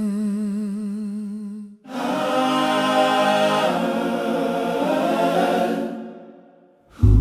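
Wordless a cappella vocal music: a single voice holds a hummed note with a wavering vibrato, then, after a brief break, a choir sings a full sustained chord that fades away. A deep low tone begins right at the end.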